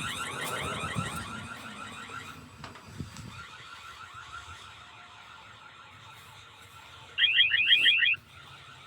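Electronic security alarm siren sounding a rapid rising warble, about six sweeps a second. It drops off after about two seconds and blares loud again for about a second near the end.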